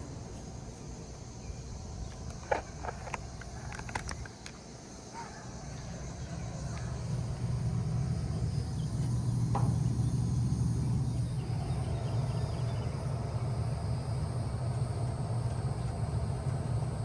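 Bard wall-hung heat pump in cool mode: a few sharp clicks, then a low hum that builds from about five seconds in and runs on steadily. Crickets chirp faintly.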